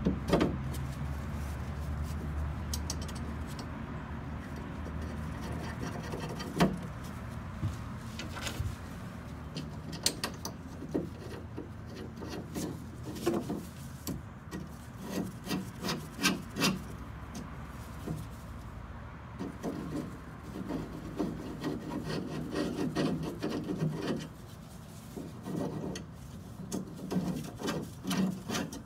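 A small metal bracket is handled and fitted against a steel dash frame by gloved hands, making irregular clicks, knocks and scraping. A low hum fades out in the first few seconds.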